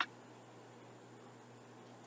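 One sharp wooden click right at the start as a thin die-cut wooden puzzle piece is popped out of its sheet, followed by faint steady room hiss.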